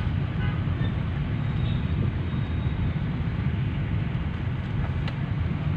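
Steady low rumble of road and engine noise heard from inside a moving car in city traffic, with a short click near the end.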